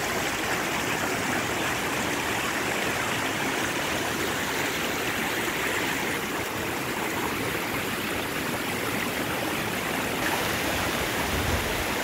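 Small mountain stream rushing steadily over stones and cobbles.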